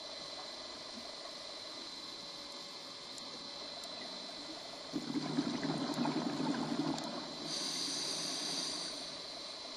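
Scuba diver breathing through a regulator underwater: about halfway in, a rumble of exhaled bubbles lasting about two seconds, then a higher hiss of the next breath drawn through the regulator.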